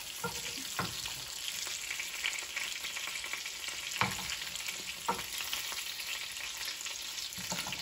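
Marinated chicken pieces sizzling steadily as they shallow-fry in hot oil in a skillet, with a few light clicks of a metal slotted spoon against the pan as the pieces are turned.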